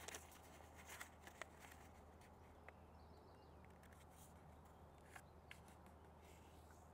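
Near silence over a low hum, with a few faint, short rustles and taps of a square of origami paper being folded and creased by hand on a cutting mat.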